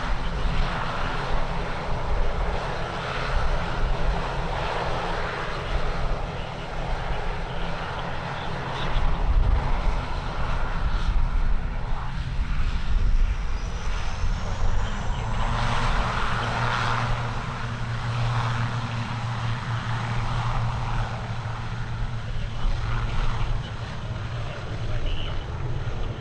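Aircraft engines running with a steady drone that grows stronger after about the middle, and a faint rising whine just before that, over low rumble from wind on the microphone.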